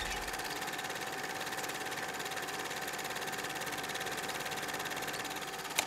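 Rapid, even mechanical clattering sound effect with a faint steady tone underneath, ending in a sharp click.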